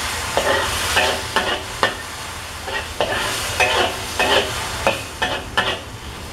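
Garlic and chilies sizzling in hot oil in a wok while a spatula stirs and scrapes them around the pan, in short strokes about twice a second.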